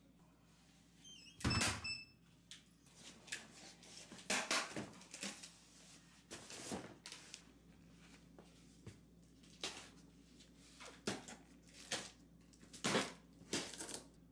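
A heavy cardboard parcel box being handled and shifted on a tile floor: a series of knocks and thuds, the loudest about a second and a half in, mixed with soft slipper footsteps. A brief high beeping tone sounds with that first loud thud.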